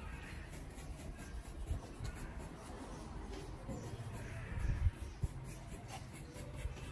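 A flat paintbrush scrubbing and dabbing paint onto a wall in soft, scratchy strokes, over a low background rumble and a few faint clicks.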